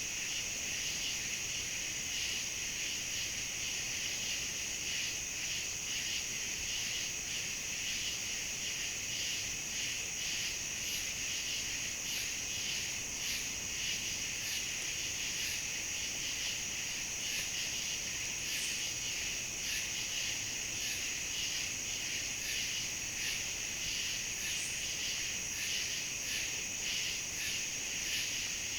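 Late-summer insect chorus of crickets and katydids: a continuous high trill with a lower, regularly pulsing call over it and faint high ticks repeating evenly.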